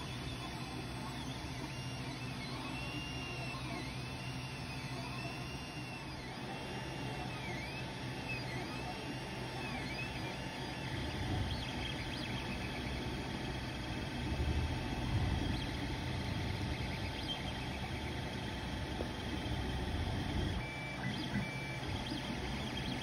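Creality Ender 3 Pro 3D printer running a print. Its stepper motors whine in repeated rising-and-falling arcs, about one a second, as the print head moves, over the steady hum of its cooling fans.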